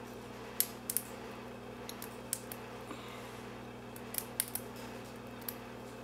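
Small sharp metallic clicks of a lock pick and tension wrench working the pins of a brass pin-tumbler padlock, in scattered clusters: three near the start, a few around two seconds, more after four seconds. A steady low hum runs underneath.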